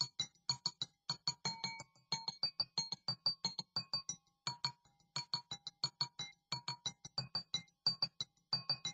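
Water-tuned glass goblets struck quickly in a steady driving rhythm, each tap ringing a short bell-like note. A five-note tune, with a brief pause about four seconds in.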